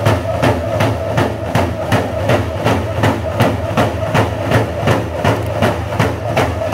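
Dene hand-game drummers beating hide frame drums in a fast, steady, even rhythm of about three beats a second, with a group of men singing over the drums.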